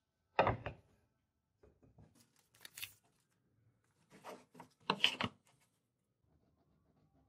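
A block of wood set down on a workbench with a short knock, then a paper template rustling and rubbing in two spells as it is laid on the wood and smoothed flat by hand.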